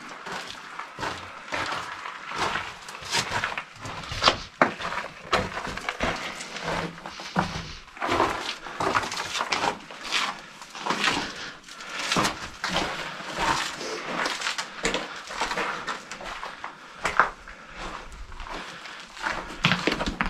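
Footsteps crunching irregularly on gravel and rubble, with scuffs and knocks, inside a concrete tunnel.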